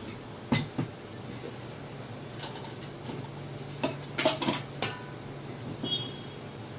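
Kitchen utensils clinking and knocking: a scattering of short, sharp metallic clicks, several close together about four seconds in, as things are handled while a mixer-grinder jar is being filled.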